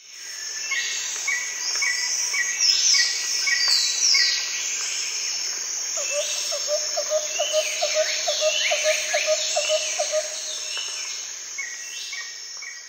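Several birds singing and chirping, with repeated falling whistles and quick chirps over a steady high insect drone. From about six to ten seconds in, a run of lower notes comes about three a second.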